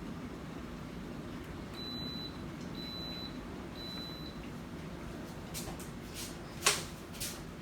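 Electric programmable temperature kettle beeping three times, each beep about half a second long, signalling that the water has finished heating. A few clicks follow near the end, one of them sharp.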